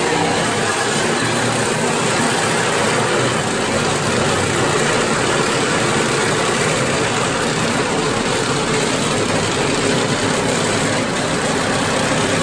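Handheld power tool running steadily as it cuts into the car's stripped sheet-metal body, a loud, even noise without a break.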